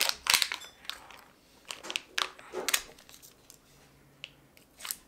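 Foil seal being peeled off the plastic half of a Kinder Joy egg, crinkling and tearing in short bursts: a cluster near the start, more around the middle and one near the end.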